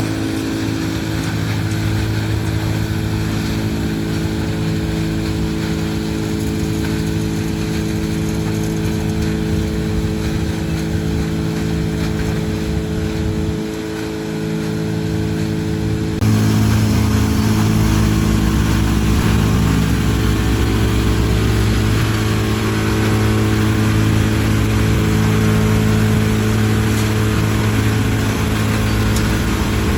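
Heavy-duty biomass crusher shredding corn stalks: a loud, steady machine drone with a constant hum. It dips briefly, then runs louder and fuller about halfway through.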